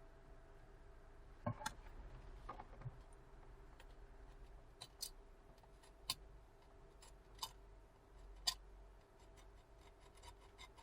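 Faint, irregular small clicks and light taps, about a dozen, as the tiny volume button and small repair tools are handled on an opened iPhone 6 Plus, over a low steady room hum.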